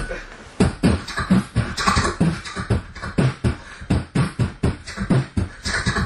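A young man beatboxing into a microphone cupped to his mouth. He lays down a fast rhythm of low kick-drum sounds alternating with hissing higher sounds, about four hits a second, starting about half a second in.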